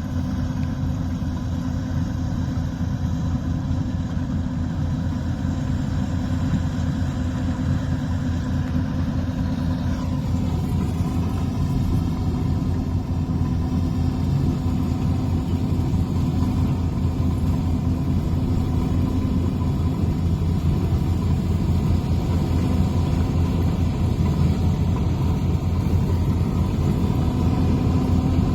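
Engine of a Yanmar rice combine harvester running steadily. Its sound changes abruptly about ten seconds in, then carries on steadily.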